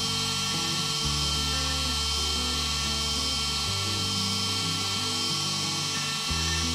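A CNC router's spindle whining steadily as a V-bit engraves pine, with low tones underneath that hold and then jump to new pitches every second or so.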